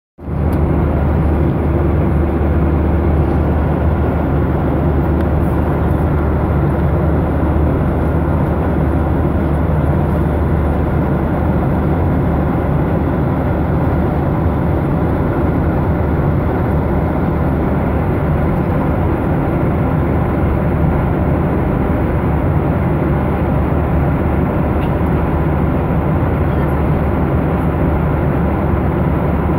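Steady cabin noise of a jet airliner at cruise, heard from a window seat: the even rush of air and jet engines, with a strong low drone underneath.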